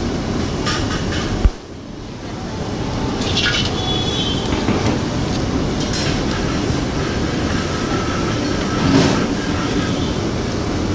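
Rice-flour chekkalu deep-frying in a kadai of hot oil, a steady sizzle, with the metal slotted ladle clicking against the pan now and then. A sharp knock comes about one and a half seconds in, after which the sizzle drops and builds back up.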